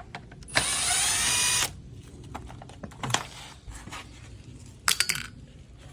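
A power tool with a socket whirs in one burst of about a second, its pitch rising slightly as it spins a nut off the cooling-fan assembly. A few sharp metallic clicks follow later.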